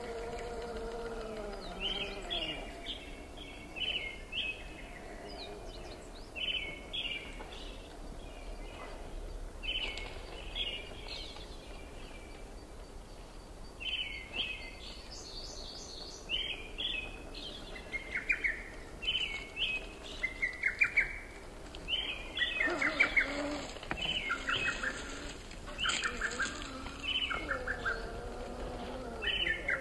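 Songbirds chirping and singing in short repeated trills and chirp phrases, busiest and loudest in the second half.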